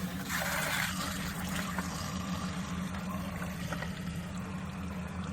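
Water being poured into the top of a clogged radiator from a 1952 Lister D engine, splashing at first and then trickling steadily through, over a steady low hum. It is a flow test of a radiator core that had been totally blocked.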